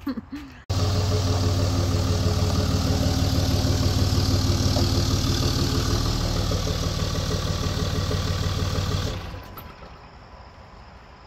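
Dodge Ram 2500's Cummins turbo-diesel engine idling steadily. It cuts in abruptly under a second in and falls away to a faint hiss about nine seconds in.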